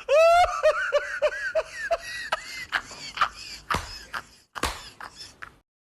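A person laughing: a run of short pitched 'ha' sounds that fades over about two seconds, followed by a few softer breathy bursts. The sound cuts off suddenly near the end.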